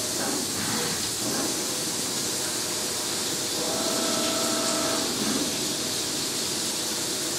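Flood coolant hissing and splashing inside the enclosure of a Pinnacle QV-137 CNC vertical machining center while its geared-head spindle rigid-taps a 5/8-11 thread into 4140 steel in low gear at 250 RPM. A faint steady whine comes in from about three and a half to five seconds in.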